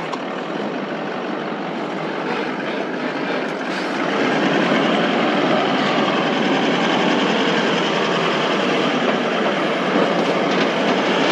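A four-wheel drive driving along a rough dirt track: a steady rumble of tyres and road noise, getting louder about four seconds in.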